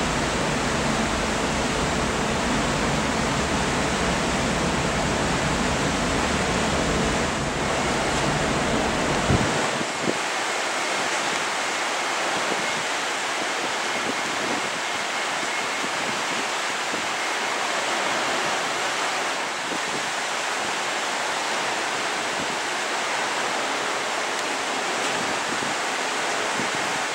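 Steady rushing wind noise on the microphone, with a low rumble and faint hum under it that drop away about a third of the way through.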